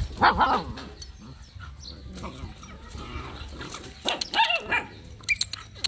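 Puppies play-fighting and barking, with one burst of yapping just after the start and another about four seconds in.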